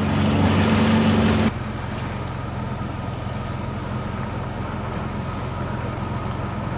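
For about the first second and a half, a Sea-Doo Switch pontoon boat's engine running at cruise with wind and water noise; then it cuts off suddenly to a pickup truck's engine idling steadily as the truck reverses a boat trailer.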